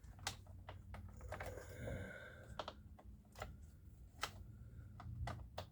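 Scattered sharp clicks and light taps of the plastic chainsaw housing and small parts being handled, with a brief scraping rattle about a second and a half in.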